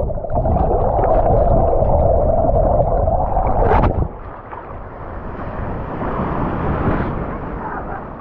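Loud rushing and gurgling of surf water in knee-deep waves, cutting off abruptly about four seconds in, followed by a softer wash of the waves.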